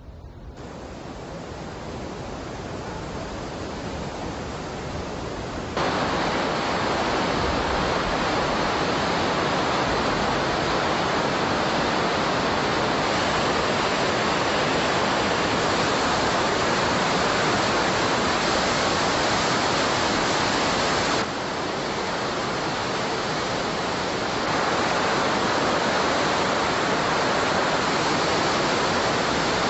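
Large waterfall rushing: a steady, even noise of falling water that fades in over the first few seconds, jumps louder about six seconds in, dips slightly about twenty-one seconds in and comes back up a few seconds later.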